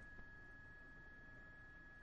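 Near silence: a faint steady hiss with a thin, steady high-pitched tone running under it.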